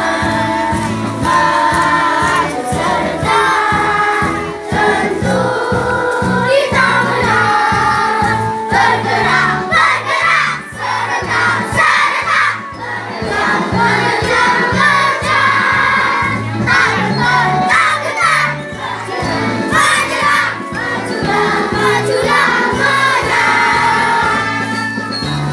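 A crowd of schoolchildren singing an Indonesian patriotic heroes' song together, loud and unbroken.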